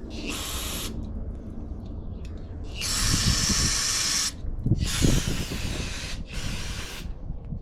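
Aerosol spray can spraying in four bursts of hiss: a short one, two longer ones and a short one near the end.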